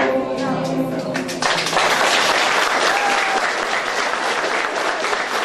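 A group of young women singing together in unison, their song ending about a second and a half in, followed by applause.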